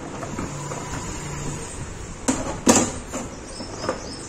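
Plastic back cover of an LED TV being handled and lifted after its screws are out: a few sharp clicks and knocks, the loudest two about two and a half seconds in.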